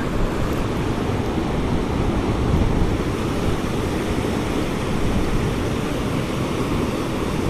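Steady rushing of river water spilling over a low dam and through its outflow.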